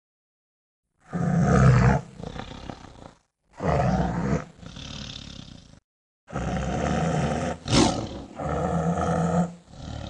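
Tiger roaring about four times, each call loud at first and trailing off, with short gaps of total silence between them.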